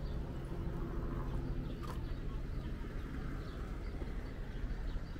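Outdoor park ambience: a steady low rumble of traffic, with an engine hum that fades out about two seconds in, and faint bird chirps.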